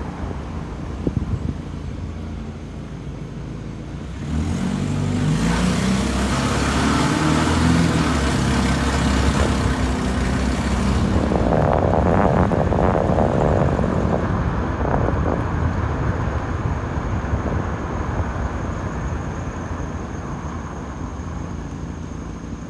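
Vehicle driving along a street: steady engine and road noise, swelling louder with a rushing hiss from about four seconds in until about eleven seconds, then settling back.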